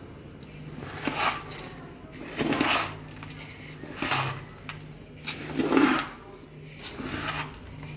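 A coarse, crumbly methi laddu mixture of ground fenugreek, flour, chopped nuts, jaggery and ghee is turned over by hand in a metal pot. It makes a scraping, rustling stroke about every second and a half.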